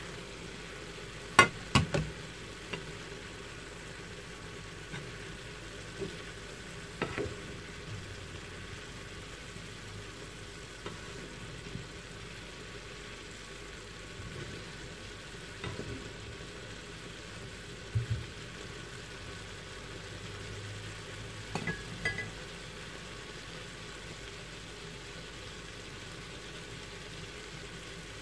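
Turkey pieces and broccoli simmering in a frying pan with a steady, quiet sizzle. A spatula stirs them and knocks against the pan now and then, and the loudest clatter comes about a second and a half in, as the pan being used as a lid is lifted off.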